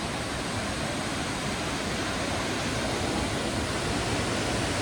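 A large waterfall in full flow after heavy rain: the steady, unbroken rush of falling water.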